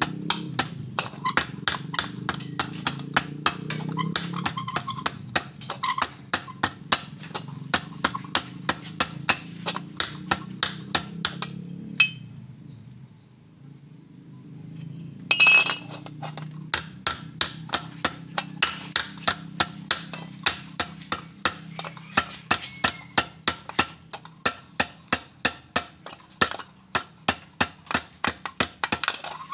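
Ball-peen hammer striking a steel exhaust tube on an anvil, a steady run of about three sharp metal blows a second as the pipe end is worked. The blows stop for about three seconds midway, then one loud clank and the hammering resumes; a steady low hum runs underneath.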